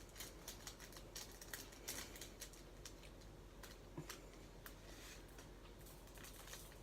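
Faint, irregular small clicks and taps of diamond painting supplies being handled on a table: plastic drills, bags and trays.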